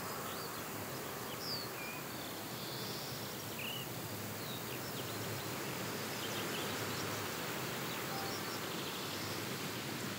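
Outdoor ambience: a steady hiss of background noise with faint, scattered bird chirps.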